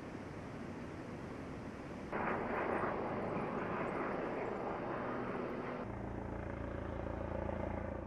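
Steady outdoor background rush from location sound, getting louder and fuller at a cut about two seconds in. In the last two seconds a steady low engine hum joins it.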